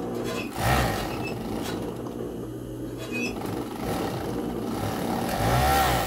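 Chain-stitch sewing machine running steadily as it stitches a seam, louder about half a second in and again near the end.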